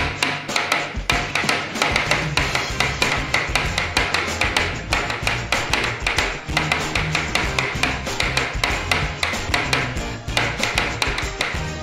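Rapid, irregular tapping of fingertips on a tabletop, several taps a second, as someone types fast on a keyboard drawn on the table. Background music with a bass line plays underneath.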